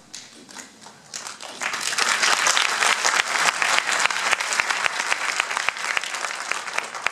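Audience applauding. The clapping starts thin, swells into a dense round about a second and a half in, and breaks up into scattered single claps near the end.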